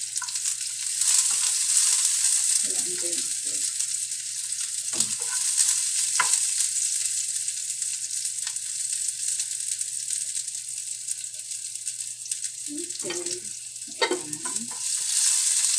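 Sliced garlic and onion sizzling in a nonstick frying pan with a steady hiss, stirred with a wooden spatula that knocks lightly against the pan a few times.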